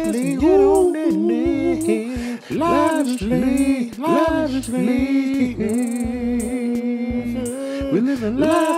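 A man singing a long, wavering melody with runs that bend up and down, over a steady low beat.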